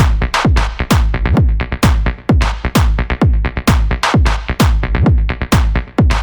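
Background electronic dance music with a steady beat of about two deep kick-drum hits a second, each dropping in pitch, and sharp percussion ticks between them.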